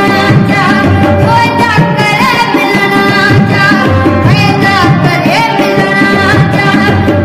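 A boy's voice singing a Sindhi Sufi song in a gliding, ornamented line, with a harmonium holding steady chords beneath it and light hand-drum beats.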